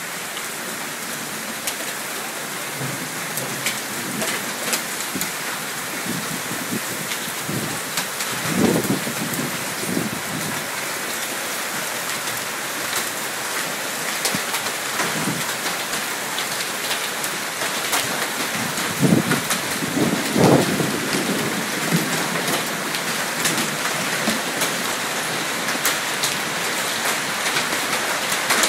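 Heavy hailstorm: a dense steady hiss of hail and rain pelting car bodies and the awning roof, full of sharp ticks of individual hailstones. Low rumbles swell up a few times, about a third and about two-thirds of the way through.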